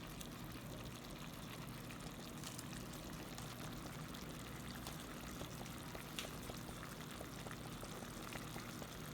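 Pot of cabbage and chicken simmering in a little water: a steady bubbling hiss with scattered small pops.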